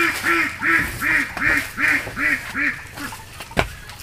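A duck quacking in a quick run of about eight calls, roughly two to three a second, then stopping; a single sharp knock follows near the end.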